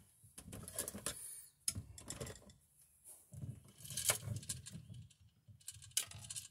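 Wire strippers being handled and set onto a stiff black electrical wire: scattered light clicks and rustles of the metal tool and the copper wires.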